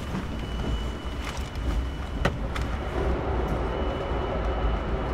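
Narrow-gauge passenger train car rolling along the track, heard from on board: a steady low rumble with scattered clicks and knocks from the wheels and running gear.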